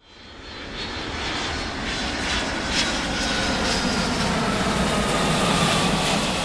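Airplane engine noise, swelling in from silence into a steady rush with a faint, slowly falling whine, like an aircraft passing.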